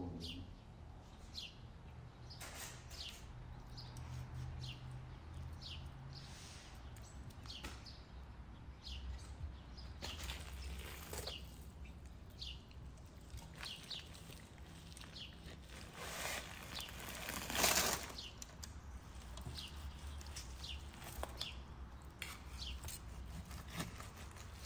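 Small birds chirping in the background, short high falling calls every second or two, over a low steady hum. A brief louder rustling noise comes about two-thirds of the way through.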